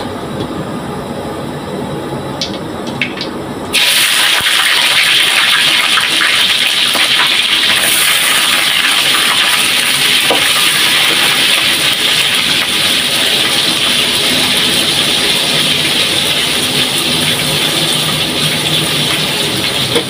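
Raw sea shrimp dropped into hot cooking oil in a wok and deep-frying: a loud, steady sizzle that starts suddenly about four seconds in.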